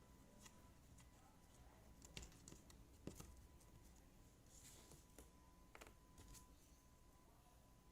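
Near silence with a few faint, scattered clicks and taps of jigsaw puzzle pieces being handled and pressed into place, over a faint steady tone.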